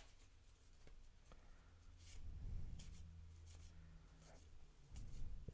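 Faint rustling and soft clicks of 1987 Topps baseball cards being flipped through by hand, with a low hum in the middle.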